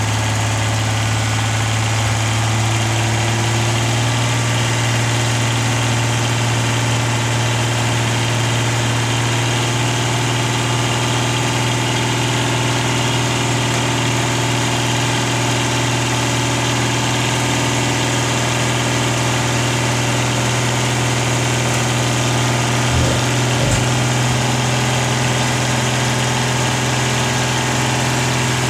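Diesel engine of a hook-lift roll-on roll-off truck running steadily while it powers the hydraulic hook arm lifting and tipping a loaded bin. Two short low knocks come about three-quarters of the way through.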